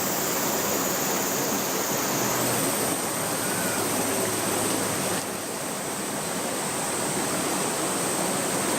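Steady rush of a mountain stream: flowing water making an even hiss, dipping slightly about five seconds in.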